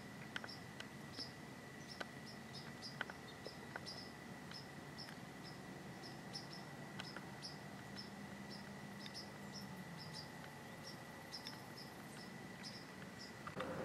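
Crickets chirping faintly in a field: short high chirps repeating unevenly several times a second, over a thin steady high whine and a few soft clicks.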